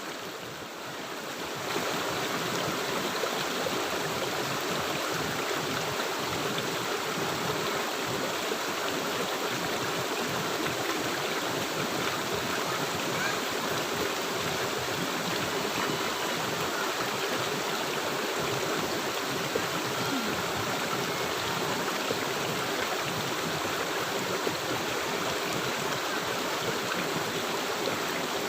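River water flowing steadily, a continuous rushing, a little softer for the first second or so.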